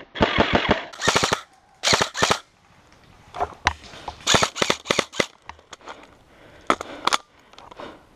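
Airsoft rifles firing short full-auto bursts of rapid clicking shots, each about half a second long, then scattered single shots and quieter bursts.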